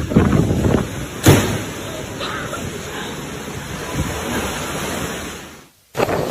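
Typhoon wind and rain making a steady rushing noise, with one sharp bang, like something slamming, about a second in. The sound fades away near the end.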